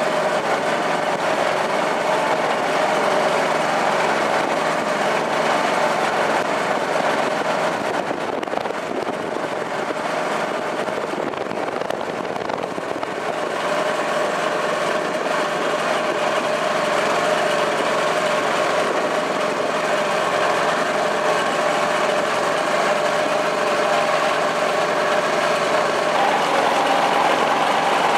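Small boat's engine running steadily while the boat travels through the water; the engine note rises slightly near the end.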